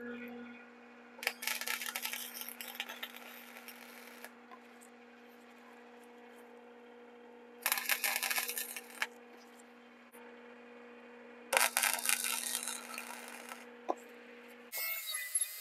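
Arc welding on steel: three crackling, sputtering bursts of a few seconds each over a steady electrical hum from the welder. Just before the end, a high-pitched power tool starts running instead.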